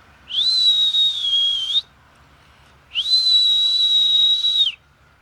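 A person whistling twice at a groundhog, two loud long whistles about a second apart, each held at one high pitch, rising at the start and dropping off at the end.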